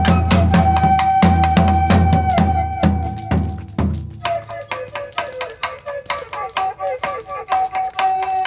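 A wooden flute holds one long note over a steady low drum beat. The drum stops about four seconds in and the flute goes on with short runs of notes, settling on a held note near the end, with sharp clicks scattered throughout.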